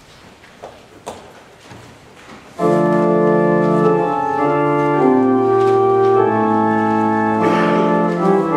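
Church organ starts playing sustained chords about two and a half seconds in, after a quiet stretch with a few small knocks.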